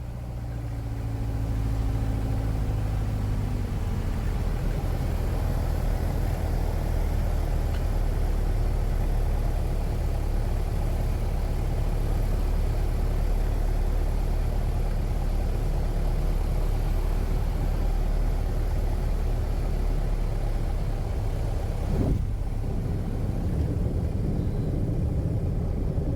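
Single-engine Piper PA-28 Archer's four-cylinder piston engine and propeller droning steadily, heard inside the cockpit during the landing, with a brief thump about three-quarters of the way through.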